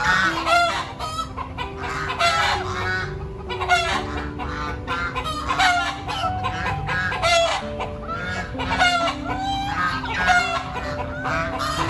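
Domestic poultry calling over and over, about two loud calls a second, over soft background music.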